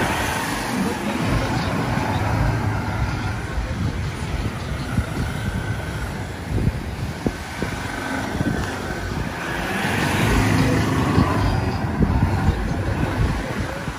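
Ford Ranger ute's engine running as the truck drives slowly across beach sand, with a continuous low rumble and scattered knocks. The sound swells about ten seconds in.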